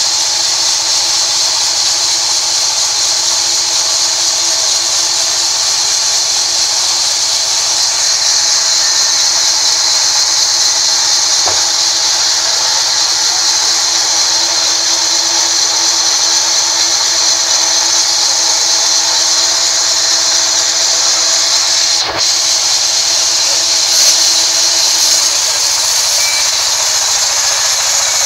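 Large vertical band sawmill running steadily, a loud high hiss over a steady hum, as its blade saws through a rain tree log.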